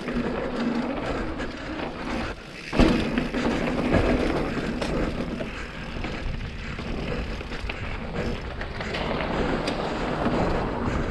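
Mountain bike rolling over a rough dirt road: continuous tyre noise with rattling over rocks, and a sharp knock about three seconds in.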